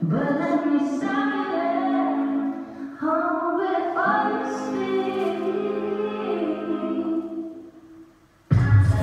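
Dance track intro: sustained sung vocal notes over a soft backing with no beat. The music dips almost to nothing about eight seconds in, then a heavy bass beat drops in just before the end.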